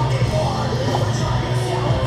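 Loud music, rock-like, with a sustained low bass note underneath.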